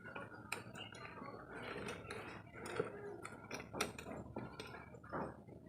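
Faint scattered clicks and light metallic clinks and scrapes of a screwdriver working at a screw on a removed amplifier circuit board.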